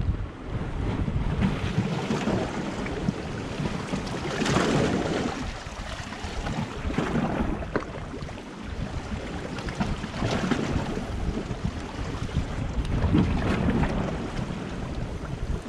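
Small sea waves washing against shoreline rocks, swelling and falling back about every three seconds, with wind rumbling on the microphone.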